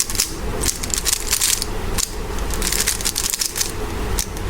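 3×3 Rubik's cube being turned fast in a speed-solve, its plastic layers clicking and clacking in quick, irregular runs.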